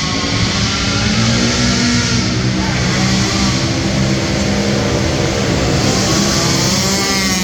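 Racing quad engines revving hard, the pitch rising and falling again and again as the throttle is worked through the turns of a short oval track.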